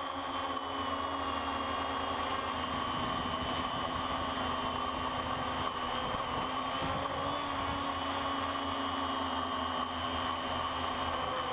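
Multirotor drone's electric motors and propellers running steadily, several high whining tones over a hiss, as picked up by the camera mounted on the drone.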